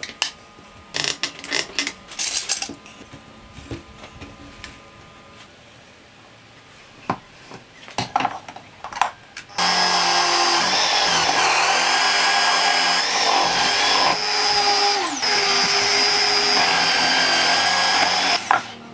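Scattered clicks and knocks of wood and a bar clamp being handled. About halfway through, a benchtop drill press starts and runs steadily for about nine seconds while a Forstner bit bores into a wooden block, its pitch dipping briefly under load.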